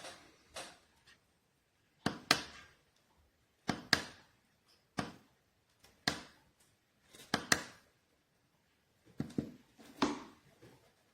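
Sharp taps and clicks, roughly one or two every second and several in close pairs, from a small plastic digital alarm clock being handled.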